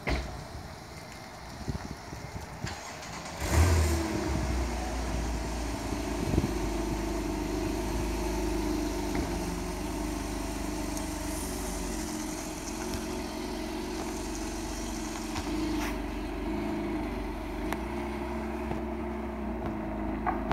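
Porsche 911 (991) Carrera 4S Cabriolet's flat-six engine starting about three and a half seconds in, with a brief loud burst as it catches. It then settles into a steady idle.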